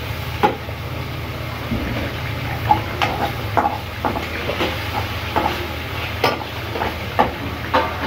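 Chicken pieces deep-frying in hot ghee in a large wok, bubbling and sizzling steadily as they brown, with irregular clicks and scrapes of a metal spatula against the pan.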